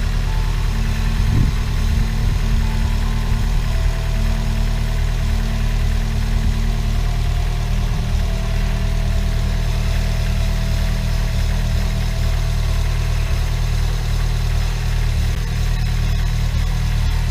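Chevrolet Celta's four-cylinder engine idling steadily with its rebuilt alternator, whose bearings run smooth without the bearing noise that mud had caused.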